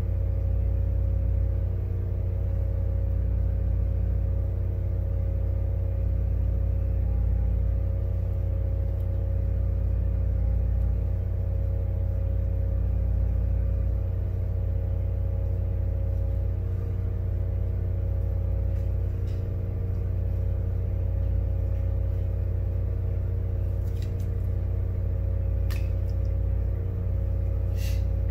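Steady low machine hum with several constant tones, from electrical bench equipment running, with a few light clicks near the end.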